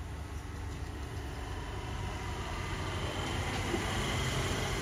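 Steady rumble of road vehicle noise, growing gradually louder over a few seconds.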